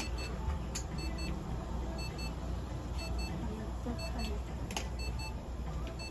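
An electronic beeper on clinic equipment sounds short high double beeps, about once a second, over a steady low hum. A few sharp clicks from handling come near the start and about five seconds in.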